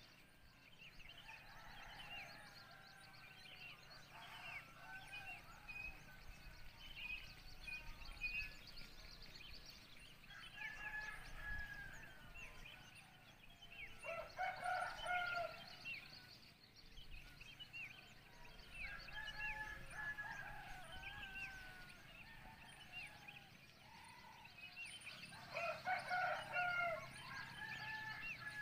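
Roosters crowing one after another, the clearest crows about halfway through and near the end, over continuous chirping of small birds.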